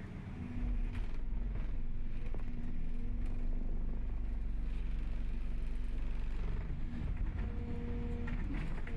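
Excavator's diesel engine running steadily under load, getting louder about half a second in, with a few knocks near the end.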